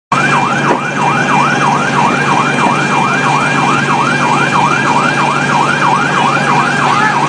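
Emergency vehicle siren in a fast yelp, sweeping up and down about three times a second over a steady low hum. It cuts in abruptly.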